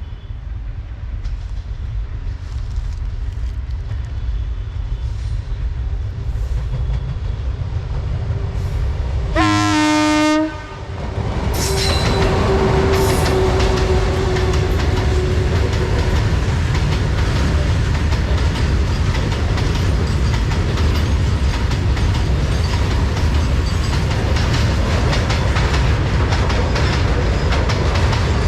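WAG-9 electric locomotive hauling a loaded freight train: a rumble builds as it approaches, then one loud horn blast of about a second, about a third of the way in. The locomotive then passes and the wagons run by with a steady loud rumble and wheel clatter over the rails.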